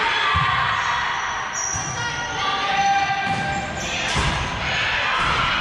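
Volleyball rally on a hardwood gym court: thuds of the ball being played and players' footfalls, with shoes squeaking and voices calling out, all echoing around the hall.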